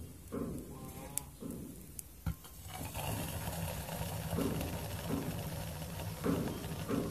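A few sharp metal clicks and clinks in the first couple of seconds as a stainless steel cup is handled and set on top of a homemade cat-food-can alcohol stove, then a steady hiss from about three seconds in.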